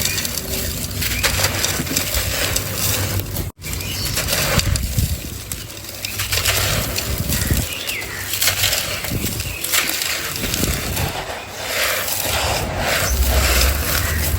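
Moulded sand-and-cement texture shapes being crushed and crumbled by hand, a continuous dry crunching and crackling of breaking, gritty pieces, with a brief break about three and a half seconds in.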